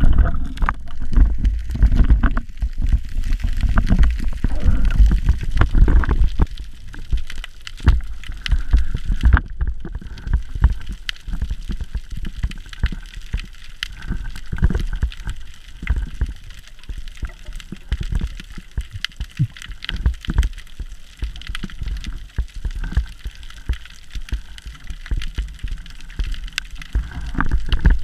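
Underwater noise picked up through a camera housing on a speargun during a freedive: a low rumble of water moving and gurgling against the housing, with many scattered clicks and knocks. It is loudest in the first few seconds after going under, then settles.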